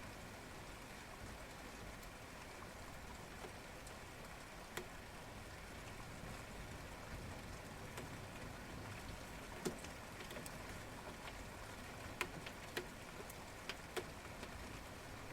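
Steady light rain falling at night, a soft even patter, with a handful of louder single drops ticking sharply close by, mostly in the second half.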